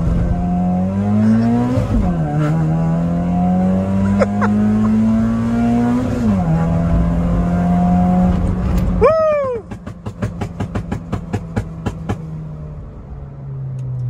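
Modified Honda Mobilio engine, heard from inside the cabin, pulling hard through the gears with two upshifts. On lift-off there is a short whistle, then a string of sharp exhaust pops and crackles from the 'dastek' modification, which goes off like small explosions.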